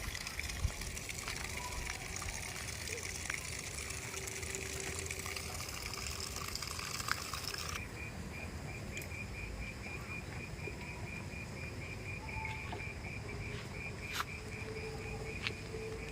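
Outdoor ambience: a steady rush of running water that cuts off abruptly about eight seconds in, leaving insects chirping in a fast, even pulse, with a few faint clicks.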